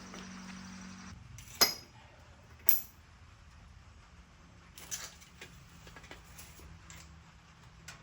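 Two sharp metal-on-metal clanks that ring briefly, followed by several lighter metallic clicks and clinks.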